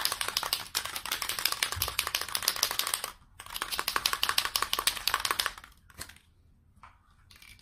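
Aerosol can of spray contact adhesive being shaken hard, its mixing ball rattling fast inside: about three seconds of shaking, a brief pause, then about two seconds more. A few faint clicks follow near the end.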